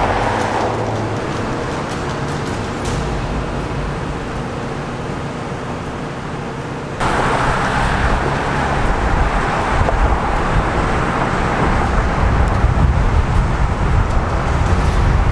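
Car and road traffic noise, a steady rushing hum. About seven seconds in it cuts abruptly to a louder rushing noise with a heavy low rumble.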